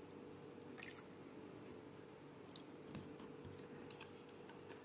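Faint wet squishes and a few small clicks of raw liver pieces being handled and rubbed by hand in a bowl of water.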